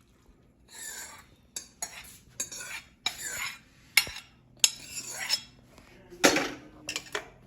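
A spoon stirring and scraping through noodle soup in a karahi (wok), with irregular sharp clinks of the spoon against the pan.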